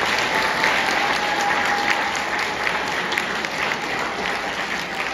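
Audience applauding: dense, steady clapping that eases off slowly toward the end.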